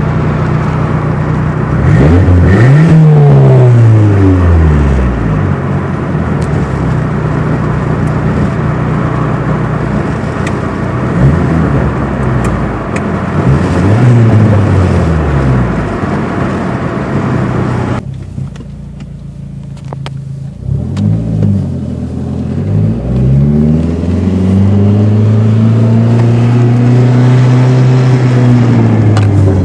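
Dodge SRT-4's turbocharged 2.4-litre four-cylinder engine pulling up through the revs and easing off again several times, the longest rise and fall near the end. The uploader finds something about the sound weird.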